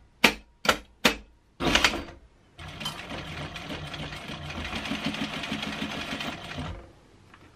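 Sewing machine stitching a seam along a fabric strip, running steadily for about four seconds and stopping near the end. It is preceded by a few sharp clicks and a brief rustle of fabric being positioned.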